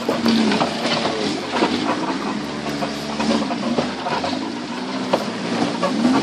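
Off-road 4x4's engine heard from inside the cabin, its pitch rising and falling again and again as it revs, with scattered knocks and rattles.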